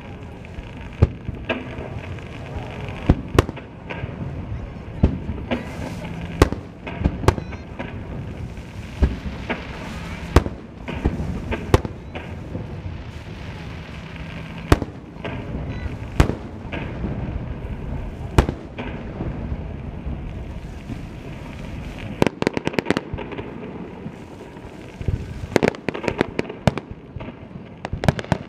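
Aerial fireworks shells bursting overhead, one sharp bang every second or two, each followed by a rolling echo. Near the end the bangs come thick and fast as many shells fire in quick succession.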